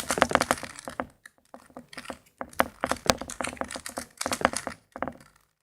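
Plastic 3x3x3 Rubik's cube being scrambled by hand: rapid, irregular runs of clicks as the layers are turned.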